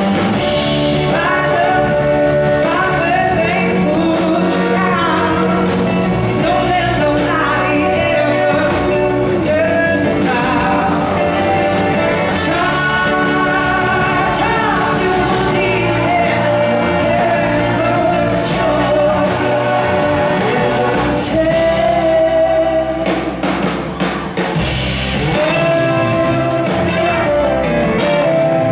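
Live blues-rock band playing, with a woman singing lead over electric guitars, drums and a horn section, heard from the audience in a large hall.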